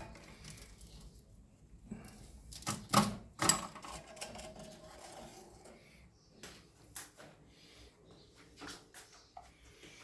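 Clicks and knocks of hard objects being handled, with a cluster of louder knocks about three seconds in.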